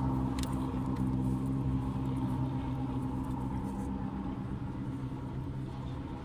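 1997 Chevrolet Monte Carlo LS's 3.1-litre V6 idling steadily, a low even hum that gets slightly quieter toward the end.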